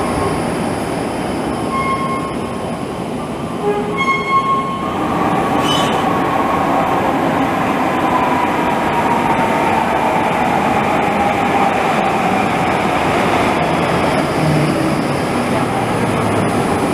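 Light-rail trams running through an underground station: a steady rumble of wheels on rails. In the first few seconds there are short beeps about two seconds apart, then an electric motor whine falls slowly in pitch as a tram slows.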